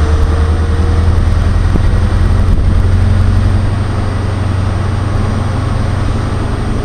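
Diesel train engine running steadily with a loud, low hum.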